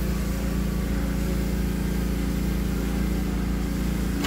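Steady low drone of running machinery, an even hum.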